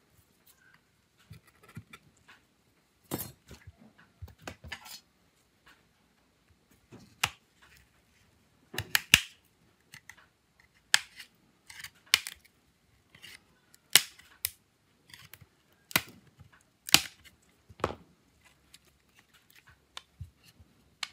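Sharp clicks and snaps, irregular and roughly one a second, as a thin metal pry tool works around the seam of an Acer Iconia B1-723 tablet's casing, prying it open, with light handling noise between.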